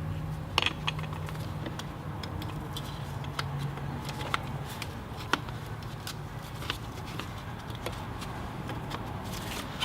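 Scattered light clicks and knocks of a short-throw shifter being slid into its shifter base and worked to line up its locating tab, over a steady low hum.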